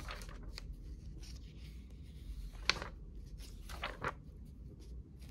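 Paper pages of an old hardcover textbook being turned and smoothed by hand: a few short rustling swishes, the loudest about halfway through and two more close together a little later.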